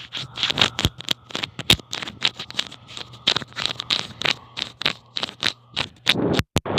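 Rapid, irregular scratching and clicking, several sharp ticks a second, over a faint steady hum.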